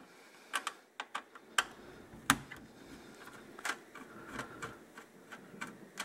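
Screwdriver clicking and tapping against a small screw and the sheet-metal plate of a microwave control panel while the screw is taken out: about a dozen light, irregular clicks, the sharpest about two seconds in.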